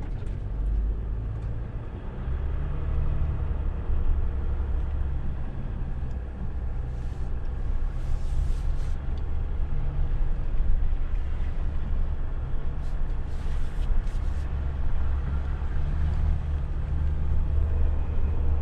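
Vehicle driving slowly over rough ground, its engine and tyres making a steady low rumble, with a few short hissing scrapes about halfway through and again later.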